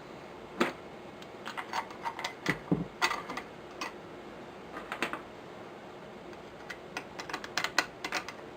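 Irregular clicks and light knocks of a Savage Model 64 rifle being handled as its stock is fitted back onto the action, coming in small clusters with short pauses between.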